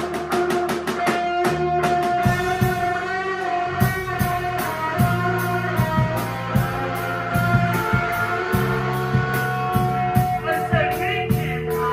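Live rock band playing: electric guitar and bass guitar holding notes over a drum kit keeping a steady beat.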